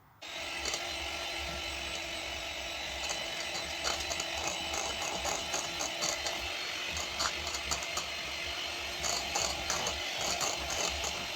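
Electric mixer running steadily, beating flour into cake batter, with a constant motor hum and frequent light clicking and rattling. It starts just after the beginning.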